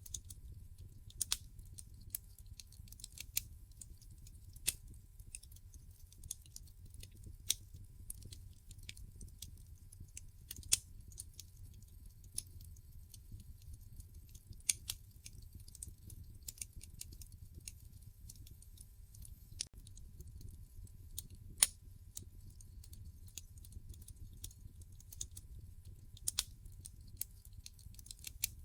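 Wood fire burning in a fireplace: sharp crackles and pops from the logs at irregular intervals over a low steady rumble. One pop about three quarters of the way through is louder than the rest.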